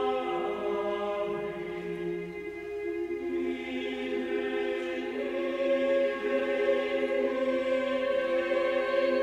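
Mixed chamber choir singing a cappella: long held chords that shift slowly, growing louder and fuller about a third of the way in.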